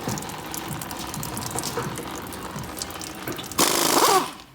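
Automotive fluid draining and splashing into a drain pan under the car, with light clinks of tools. A short, loud hiss comes in about three and a half seconds in and fades just before the end.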